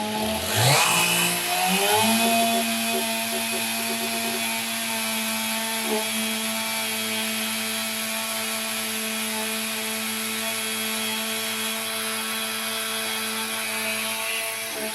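Chainsaw revving up in the first two seconds, then running steadily at high speed while cutting a notch in a large log.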